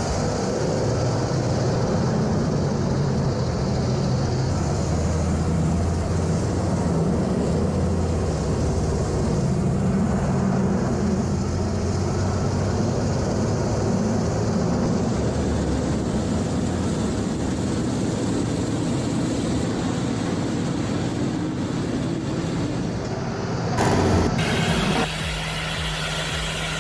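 Heavy machinery running steadily: a continuous deep engine drone. Near the end it briefly gets louder, then gives way to a different, steadier hum.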